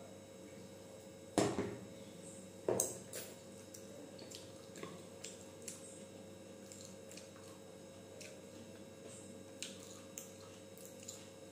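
Two loud clunks about a second apart, the second ringing briefly, as a steel tumbler is put down on the table. Then soft, scattered clicks and squishes of fingers mixing rice and greens on a steel plate.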